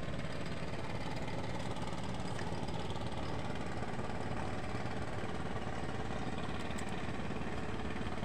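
Small fishing boat's engine idling steadily.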